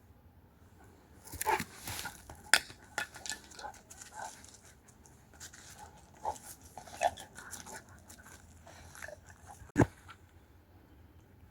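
A dog making short whimpers among scattered clicks and knocks, with one sharp knock near the end.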